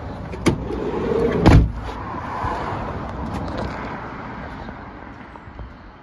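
Volkswagen California camper van's sliding side door rolled along its runner and slammed shut about one and a half seconds in, after a sharper click half a second in.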